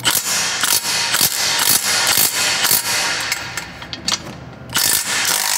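Ratchet wrench clicking in quick runs as it works the 14 mm bolts on a car's exhaust system during removal, with a short pause about four seconds in.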